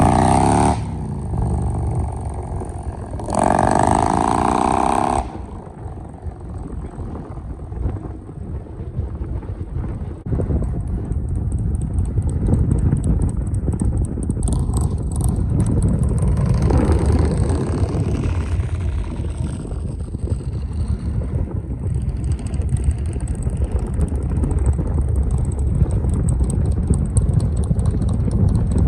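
A car driving along a road, its engine and tyre noise making a steady low rumble. Early on, motorcycle engines pass twice, their pitch sliding as they go by.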